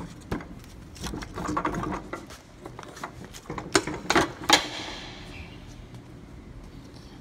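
A run of metallic clicks and knocks from cold-saw machine parts being handled, with a few sharp clanks about four seconds in.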